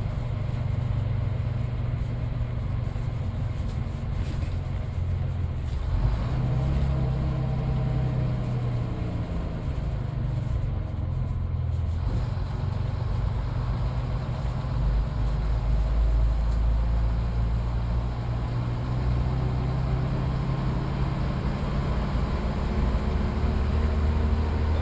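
Midland Red BMMO D9 double-decker bus's diesel engine running under way, heard on board, with its low note shifting in pitch a few times as the bus drives along.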